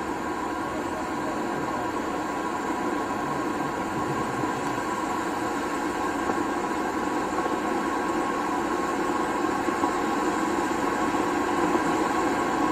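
A 13-inch conic silver fountain firework burning with a steady, loud hiss of spraying sparks, growing gradually louder toward the end.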